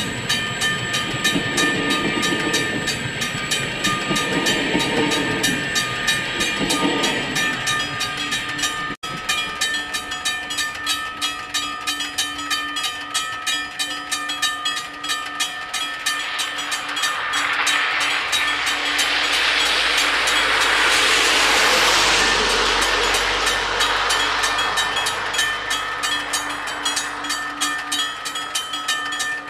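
Wabco Teardrop level-crossing bells ringing rapidly and continuously. A train passes through the crossing, its noise swelling to a peak about three-quarters of the way in, then fading.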